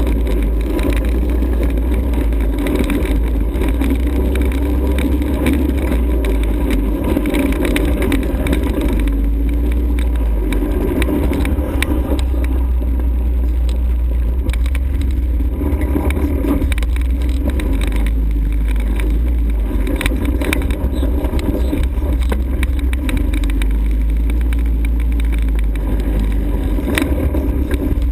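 ATV engine running under way, its pitch shifting up and down with the throttle, over a heavy low rumble, with scattered knocks.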